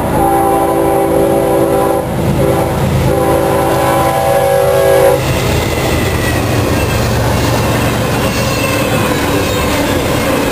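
Diesel locomotive air horn of an approaching CSX intermodal train: a long blast, a short one and another long one, cutting off about five seconds in as the locomotive passes. Then the locomotive's engine and the rumble and clatter of double-stack container cars rolling by, with faint wheel squeal near the end.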